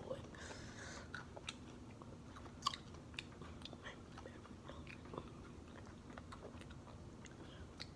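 Faint chewing and crunching of Takis rolled corn tortilla chips, a scatter of small crunches with one sharper crunch about two and a half seconds in.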